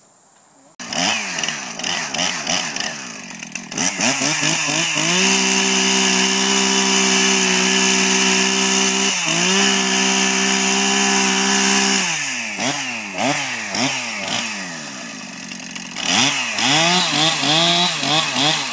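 Two-stroke chainsaw starting up about a second in and revving, then held at a steady high speed for about seven seconds, cutting wood, with a brief dip midway. After that it is revved up and down repeatedly.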